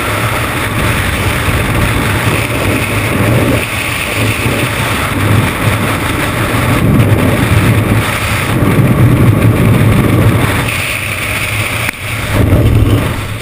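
Freefall airflow buffeting a skydiver's camera microphone: loud, steady wind noise with a low rumble that swells and eases, with a brief dip near the end.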